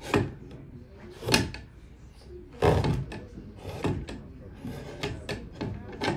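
Long lever knife hinged to a clog maker's bench slicing and paring wet, freshly carved wood by hand: a series of sharp slicing strokes about one every second and a bit, with lighter, shorter cuts near the end.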